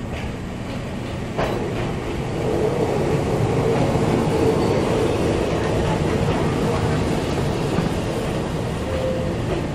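Electric commuter train running past on the adjacent track, heard from inside the cab of a stopped train: a steady rumble of wheels and motors that grows louder about a second and a half in and stays up as the train draws alongside.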